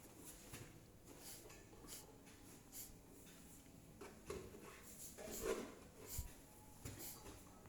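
Faint handling noises: scattered scratching and rustling with a few light knocks, including a low thump about six seconds in.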